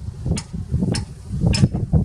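Heavy earthmoving machine running with a low, rough rumble and sharp clanks repeating a little under twice a second.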